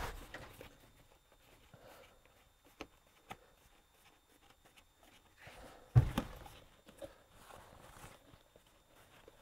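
Faint handling sounds of a pop-up camper's canvas wall being fed into the roof channel and shifted along: a couple of light clicks, then a thump with some rustling about six seconds in.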